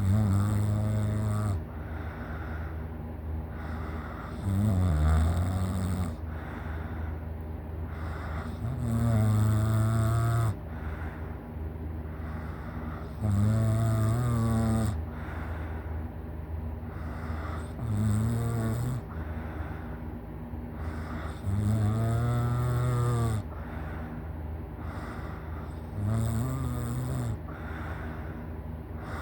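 A person snoring loudly in deep sleep: seven deep, droning snores, one about every four seconds, each lasting a second or two, with softer breathing noise between them.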